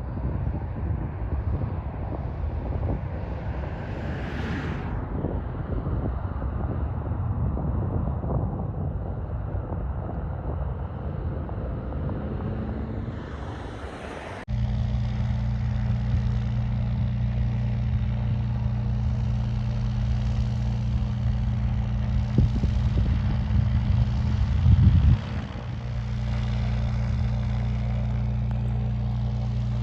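Aircraft engine noise. A rough, uneven rumble gives way abruptly about halfway through to a steady low engine drone with several even tones.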